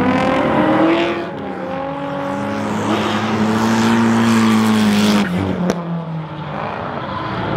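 Drift cars running on the track with their engines revving high. The pitch climbs in the first second, holds steady, then drops just after five seconds in.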